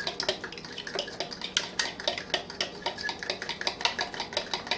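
A spoon stirring briskly in a glass measuring cup, clinking against the glass several times a second as protein shake powder is mixed into water.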